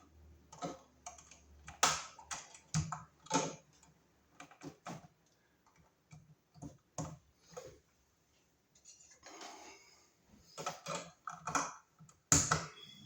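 Bare copper ground wires being gathered and handled in an electrical box: irregular sharp clicks and ticks with short gaps, the loudest near the end.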